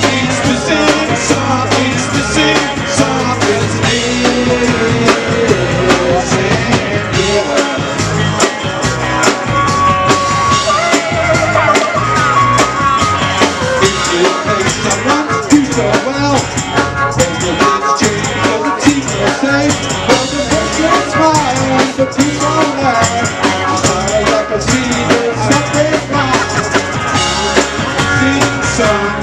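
Live rock band playing a song on electric guitar and drum kit, with steady drum beats.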